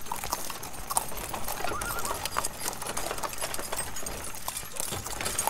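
Horse-drawn carriage on the move: the horse's hooves clip-clop in a run of short, irregular knocks.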